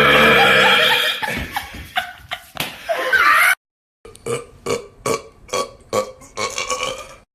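A man belching on command: one long, loud belch lasting about a second and a half, then rougher belching. After a brief silence comes a quick string of short, choppy belches.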